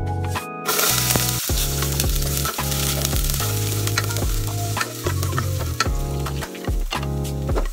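Minced garlic sizzling in hot oil in a metal pot, the hiss starting suddenly just under a second in as the garlic goes in, then stirred with a spatula. Background music plays under it.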